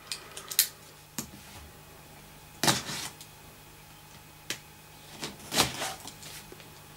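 Cardboard kit box handled on a tabletop: scattered light knocks, taps and rustles, the loudest about three seconds in and again just before six seconds.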